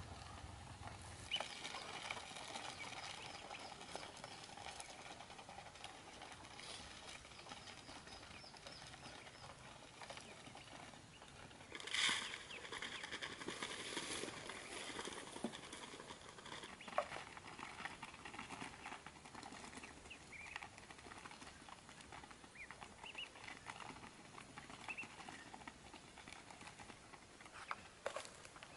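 Young poultry peeping faintly while pecking at scattered feed, with light rustling and small taps; a louder rustle about twelve seconds in.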